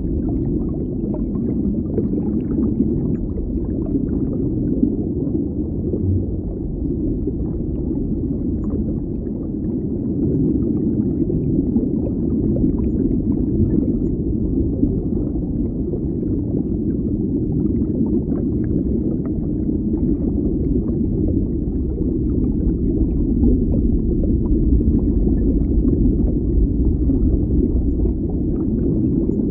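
Steady, low, muffled underwater bubbling and water rumble, with faint small crackles of bubbles scattered throughout.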